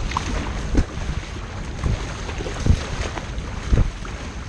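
Water rushing and splashing along a sea kayak's hull under paddle strokes, with wind buffeting the microphone. Three low thumps stand out as the bow slaps into the chop.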